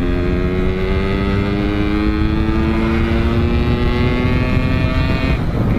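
Suzuki Shogun motorcycle engine under throttle, its exhaust note climbing steadily in pitch as it accelerates, then dropping abruptly near the end.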